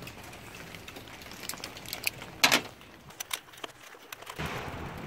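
Light metallic clicks and scraping from hand tools working in the engine's cylinder head while the injector bolt hole is cleaned out. There is one louder short scrape about two and a half seconds in, and a steady breathy hiss near the end.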